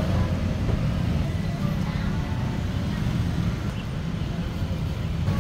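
Steady low rumble of city street traffic, with no single sound standing out.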